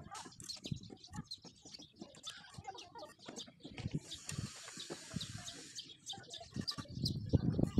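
Fired red bricks knocking and clinking as they are handled and set in place, with birds chirping. There is a short hiss about four seconds in, and heavier knocks near the end.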